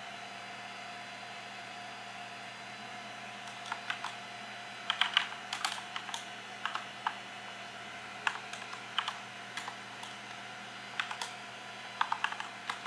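Typing on a computer keyboard: irregular keystroke clicks, single and in quick runs, starting about three and a half seconds in, as a G-code command is keyed into the 3D printer's console. A steady electrical hum lies underneath.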